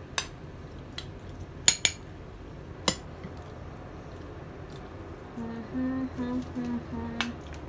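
Metal cutlery clinking against a dish several times in sharp, separate clicks. Near the end, a person hums a short run of about five low, even notes.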